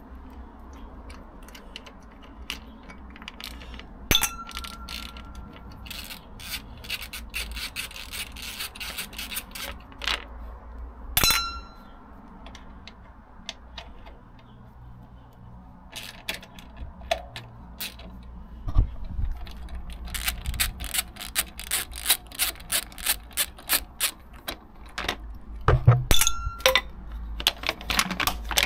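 Hand socket ratchet clicking in quick runs as bolts are worked, with a few sharp metal clinks that ring briefly, about 4 and 11 seconds in and again near the end.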